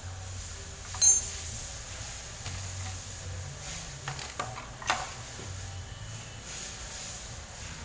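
Metal tools clinking against engine parts: one sharp ringing clink about a second in, then a few lighter knocks and clicks around four to five seconds in, over a steady low hum.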